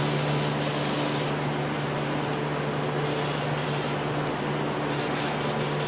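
Aerosol cleaner sprayed from a can through a thin extension straw, hissing in bursts: a long spray for the first second or so, a shorter one about three seconds in, then several quick short squirts near the end. A steady low hum runs underneath.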